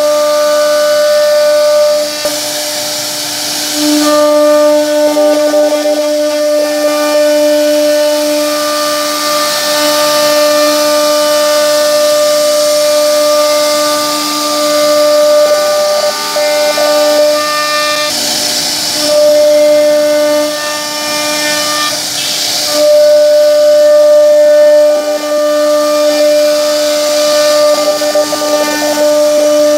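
CNC wood router's spindle running with a steady whine while its bit routes grooves in a wooden panel, over a hissing rush of cutting that swells and fades several times.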